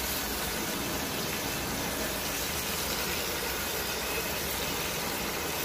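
Steady hissing sizzle of a potato and cauliflower curry frying in oil in an open pressure cooker on the stove.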